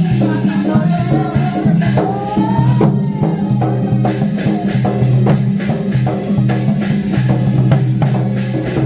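Music with a steady low drone, a melody that slides up and down in pitch, and a regular percussion beat.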